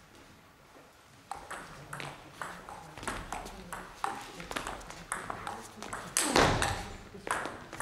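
Table tennis ball clicking off rackets and the table in a rally, about two to three hits a second, starting about a second in, with one louder, longer sound about six seconds in.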